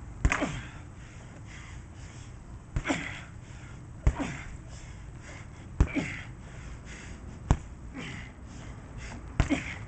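Gloved punches landing on a heavy punching bag: about seven sharp thuds, roughly one every one and a half to two seconds, with a quick double hit near the end. A short breathy exhale follows several of the blows.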